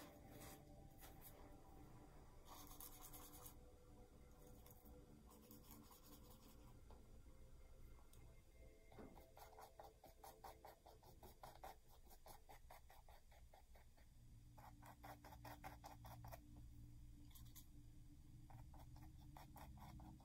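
Faint, scratchy strokes of a paintbrush dabbing paint onto a stretched canvas, coming in several quick runs of short strokes.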